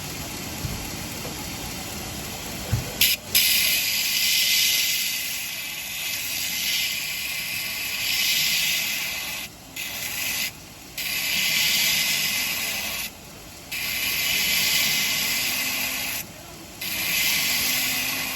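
Belt grinder with an 80-grit belt grinding the edge of a stainless steel cleaver: a loud, high hiss of steel on the abrasive belt starts about three seconds in and goes on in several passes, broken by four short pauses as the blade is lifted off the belt. Before the grinding starts, only the grinder running and a couple of knocks.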